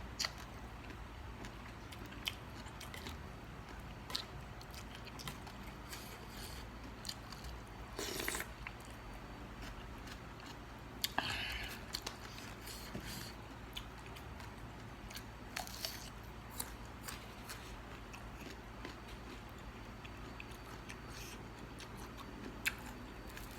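A person chewing and biting into papaya salad, with scattered short clicks and a couple of louder crunches.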